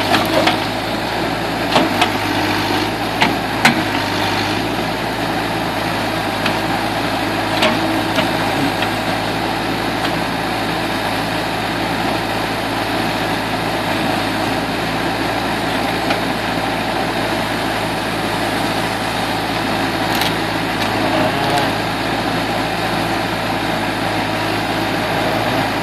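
Backhoe engine running steadily at low revs, with a few short knocks and clanks from the machine working.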